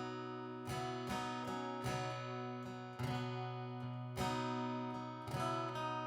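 Acoustic guitar strumming chords without singing, the strokes coming roughly once a second and each chord ringing on into the next.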